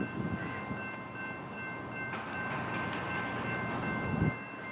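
Distant train approaching unseen: a steady, high, multi-note tone held over a low noisy rumble, with two low thumps, one just after the start and one near the end.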